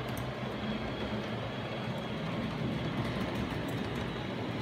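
Model locomotives running on the layout: a steady hum from the motors and wheels running along the rails, with faint scattered clicks.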